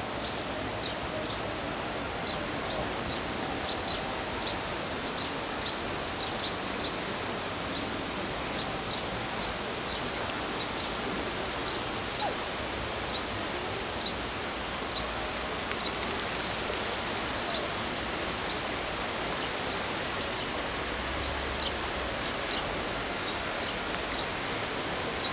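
Steady outdoor background hiss by a river, with faint, short high chirps from birds scattered through it.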